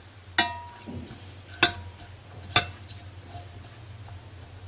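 A spoon stirring a herb and lemon mixture in a saucepan, knocking against the pan in three sharp clinks about a second apart, the first ringing briefly, with a few lighter ticks between.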